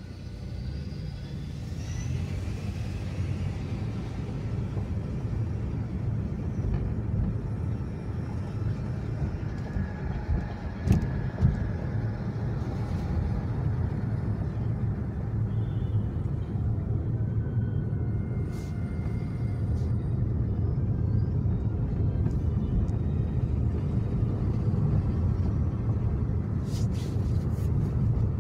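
Low, steady rumble of a car idling and the street traffic around it, heard from inside a car stopped at a red light. Two short knocks about eleven seconds in.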